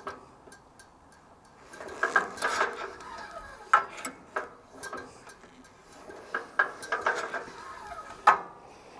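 Slow pulls on the recoil pull-start of a 14 hp wood chipper with the ignition off, turning the cutting blades over by hand: rope rasping and scattered metallic clicks and knocks, and no engine firing. Nothing is catching, so the blades are clear.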